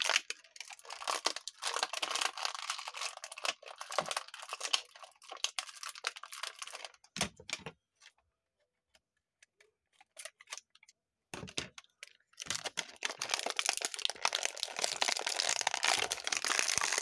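Plastic blister packaging of a 1/64 die-cast toy car crinkling, crackling and tearing as it is worked to free the car, which is stuck in the package. The handling stops for a few seconds midway, then resumes.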